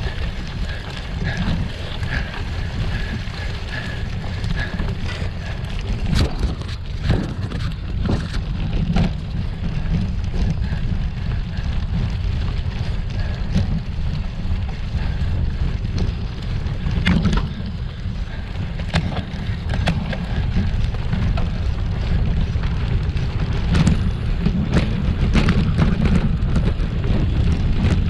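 Wind buffeting the microphone over the noise of gravel-bike tyres on a rough, rocky trail, broken by frequent sharp knocks and rattles as the bike jolts over bumps.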